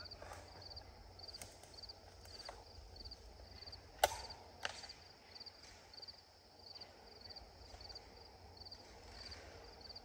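Footsteps through cut brush and slash, with twigs snapping; the sharpest snap comes about four seconds in, with a second one just after. A faint insect chirps steadily about twice a second underneath.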